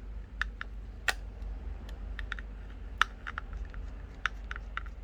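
Light, irregular clicks and taps of a precision Phillips screwdriver working the small screws inside an opened iPhone 12, with two sharper clicks about a second in and about three seconds in.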